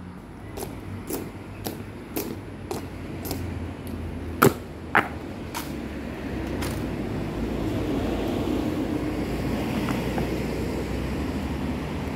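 Hard-soled boot steps clicking on stone paving about twice a second, two of them louder near the middle, stopping after about six and a half seconds. A steady low rumble of traffic then swells and holds.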